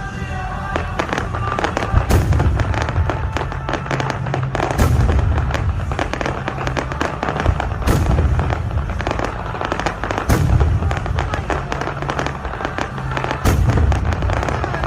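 Fireworks display: a big aerial shell bursts with a deep boom about every two and a half to three seconds, five in all, over continuous dense crackling.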